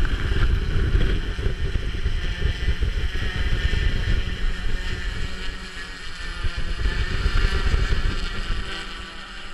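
Large hexacopter's six electric motors and propellers running steadily in flight overhead, a constant drone with wind rumbling on the microphone. It grows quieter near the end as the craft drifts away.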